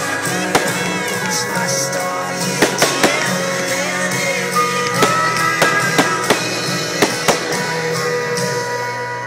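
Fireworks going off over music: about a dozen sharp bangs and cracks, several in quick succession around a third of the way in and again in the second half, as rockets launch and burst.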